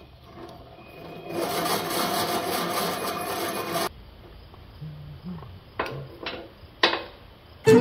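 Wood rubbing and scraping for about two and a half seconds, then stopping abruptly, followed by a few sharp knocks.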